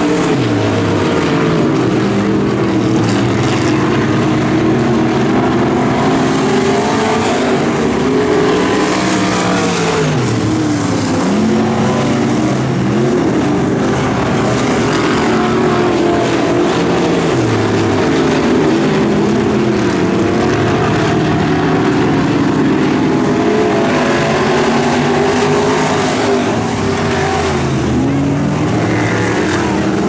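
Several dirt-track race cars' engines running hard on hot laps, overlapping. Their pitch climbs and then drops every few seconds as the drivers get on and off the throttle around the oval and pass by.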